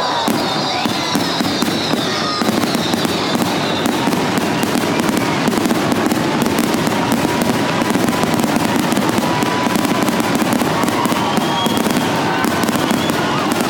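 Aerial fireworks going off in a rapid, continuous barrage of bangs and crackling, with thin whistling tones gliding through it.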